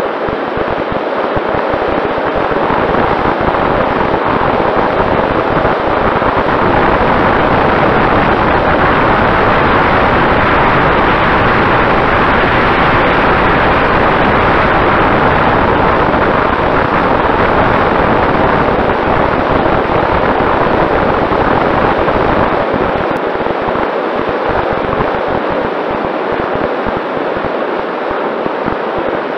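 Steady rush of airflow over the microphone of an onboard camera on a Mini Talon RC plane in flight, with a faint steady whine from its Sunnysky 2212 brushless motor and propeller underneath. It grows louder over the first few seconds as the plane climbs, then eases slightly near the end.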